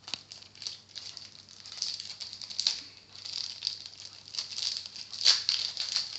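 Irregular rustling and crinkling of Animal Crossing trading cards and their packet being handled, with scattered sharp ticks; the loudest tick comes a little after five seconds in.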